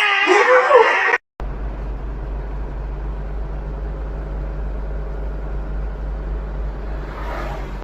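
An animal's wavering cries, cut off about a second in; then a steady, low motor hum runs on without change.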